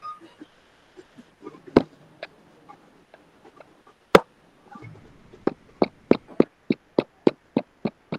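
Sharp taps or clicks: two single ones, then a quick even run of about three a second.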